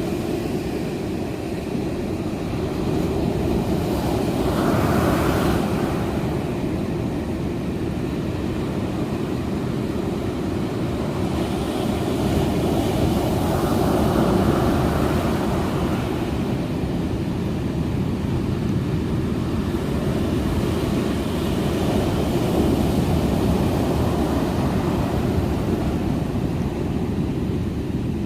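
Wind buffeting the microphone over ocean surf: a steady, low rumbling rush that swells louder a few times.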